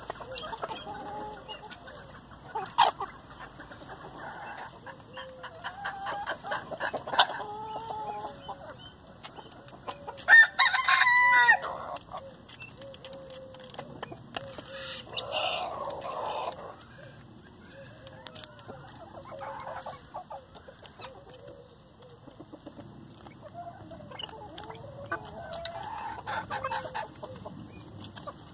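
Chickens clucking as they peck at bread, with scattered sharp taps. About ten seconds in, a rooster gives a short crow, the loudest sound.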